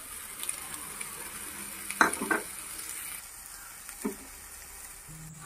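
Onions, green chillies, potato pieces and freshly added shredded cabbage frying in oil in a non-stick kadai: a steady sizzle, with brief sharper sounds about two seconds in and again about four seconds in.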